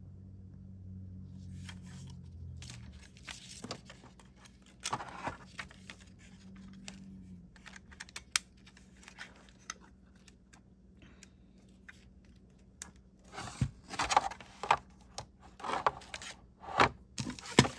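Handling noise: scattered clicks, knocks and rustles as a plastic wireless microphone receiver, its cables and a cardboard box are moved about, busiest near the end. A low hum fades out in the first few seconds.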